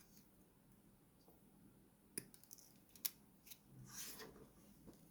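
Faint snips and clicks of hobby tools working plastic model-kit parts: a click about two seconds in, a sharper snip about a second later, then a short rustle.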